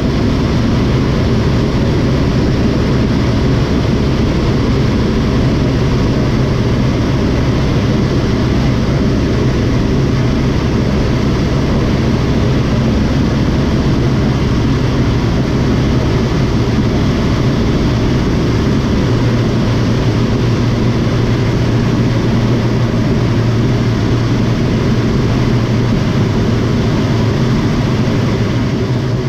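Light single-engine airplane's piston engine and propeller running steadily, with a change in the low engine note about two-thirds of the way through.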